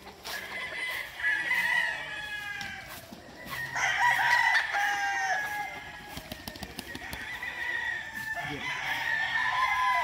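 Several gamecock roosters crowing one after another, their crows overlapping, the loudest about four seconds in and more near the end.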